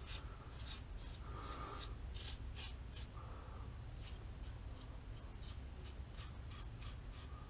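3D-printed injector razor scraping through lathered stubble against the grain in a run of short strokes, a faint scratchy "butter knife on the toast" sound.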